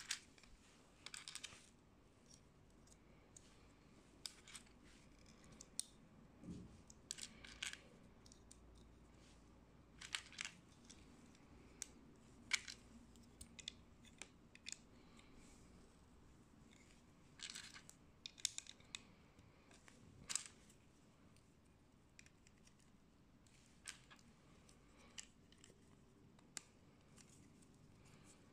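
Sembo plastic mini building bricks (LEGO-compatible) clicking as they are snapped together and handled: scattered sharp clicks and short clicking clusters, irregularly spaced, over a quiet background.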